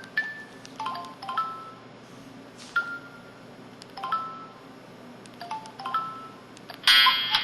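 Samsung SCH-E250 mobile phone playing its built-in effect sounds through its speaker: short electronic beeps, each at one pitch, sounding singly or in quick pairs and triplets. A louder, buzzier tone comes near the end.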